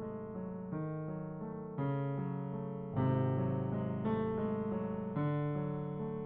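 Background piano music: sustained chords changing every second or so.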